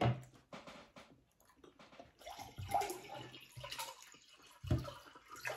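Water poured from a plastic bottle into a drinking glass, starting about two seconds in, with a few soft knocks.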